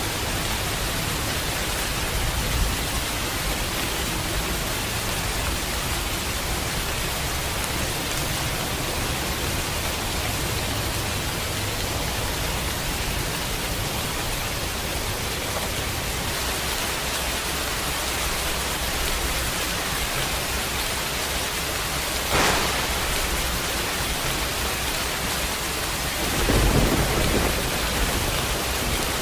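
Steady rain with thunder rumbling low beneath it. About three-quarters of the way through comes one sharp crack of thunder, and a louder rumble follows near the end.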